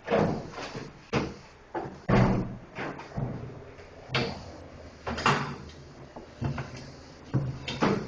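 Irregular knocks and clunks, about a dozen in eight seconds, each ringing briefly, from handling washing machine parts while taking the machine apart to replace its drum.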